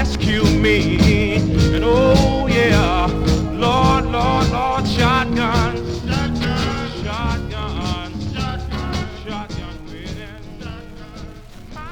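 Mid-1960s soul record with a full band and beat, fading out gradually until it stops at the very end.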